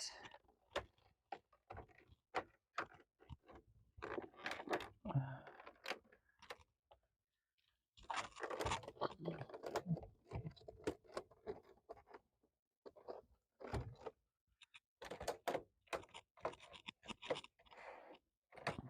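Plastic bottom cover of a Lenovo AIO 510 all-in-one being slid on and pressed into place: scattered clicks and taps with bouts of plastic scraping as its brackets snap in, and a pause of a second or so about seven seconds in.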